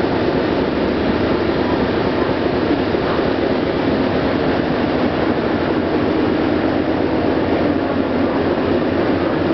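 Steady loud rumble of a Star Ferry's engines and hull heard on the lower deck, an even noise that does not change.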